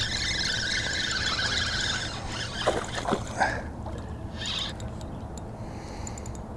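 Spinning reel (Daiwa Fuego LT 3000) being cranked, its gears whirring for about two seconds. A couple of brief swishes follow as the rod is cast, over a steady low hum.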